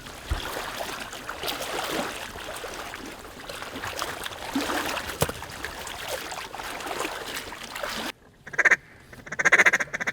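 Mallards quacking, many calls overlapping. Near the end the sound breaks off suddenly and a few loud, close quacks follow.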